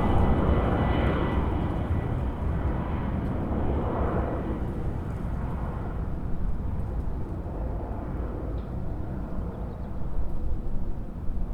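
Boeing jet airliner's engines after takeoff, a heavy low roar fading as the plane climbs away. A thin high whine dies out in the first couple of seconds, leaving a low rumble that turns uneven near the end.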